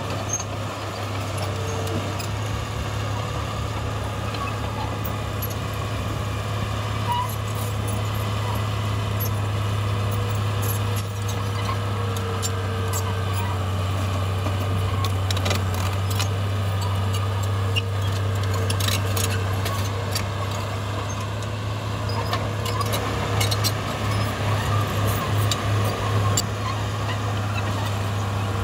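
A bulldozer's diesel engine running steadily under load, with scattered sharp clicks and clanks from the tracks and rock. The engine note pulses for a couple of seconds near the end.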